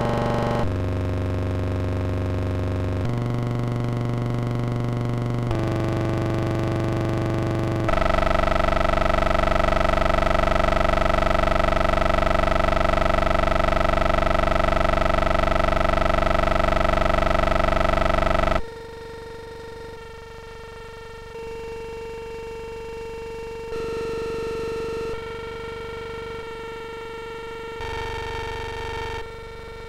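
Optical-sound film soundtrack: drawn shapes and letters on the film's sound strip played back as synthetic tones. Steady tones step to a new pitch every two or three seconds, then one loud tone with a slight pulse holds for about ten seconds and cuts off suddenly. Quieter, thinner tones follow, each changing every second or two.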